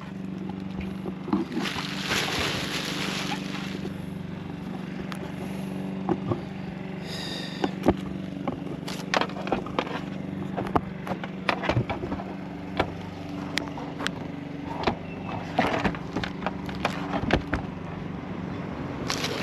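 Scattered knocks, taps and rustling of hands-on roof patching, a piece of tar paper being laid over a leak on a sheet-metal roof, over a steady low hum.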